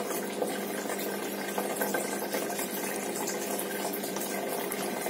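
Aquarium filter pump running: a steady hum with a constant wash of moving water.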